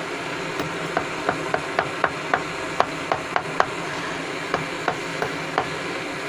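Quick, light metal taps and scrapes from a tool working at dross after a molten-metal pour, about three taps a second in two runs. Under them is the steady whirring hum of the running induction furnace.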